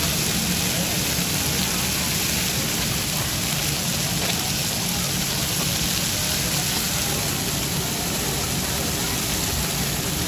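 Chicken thigh steaks sizzling steadily on a large flat-top griddle, over a low steady hum.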